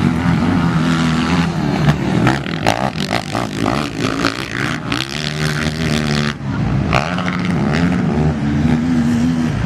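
Racing quad (ATV) engines revving hard around a dirt motocross track, their pitch rising and falling with throttle and gear changes, with a brief drop in revs a little past the middle.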